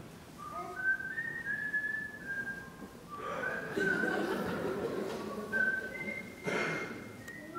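A person whistling a run of short held notes that step up and down in pitch. Audience noise swells under the whistling in the middle, and there is a brief loud burst near the end.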